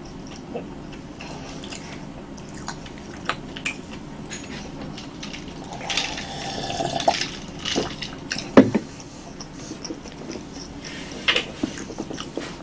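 Close-up eating sounds: roasted sweet potato being chewed, with small wet mouth clicks. About six seconds in come sips and swallows of americano from a glass, followed a couple of seconds later by one sharp, loud click or knock.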